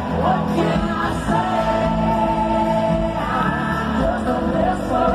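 Live country-rock band playing through a stadium sound system, with long held sung notes over the band.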